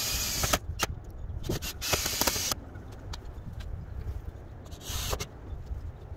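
Cordless drill driving screws into the wooden shed frame in three short bursts of about half a second each, over a low rumble.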